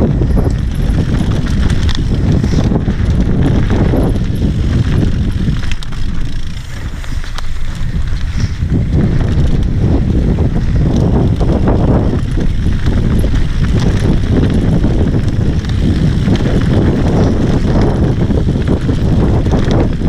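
Wind rushing over a helmet camera's microphone on a fast mountain-bike descent of a dirt singletrack, with the Santa Cruz Bronson's tyres rolling over dirt and the bike rattling and clicking over bumps. The rush eases briefly about six seconds in.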